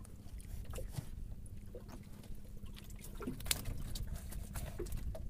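Small boat at sea: a steady low rumble with a faint hum, water trickling, and scattered small knocks and clicks, one sharper click about three and a half seconds in.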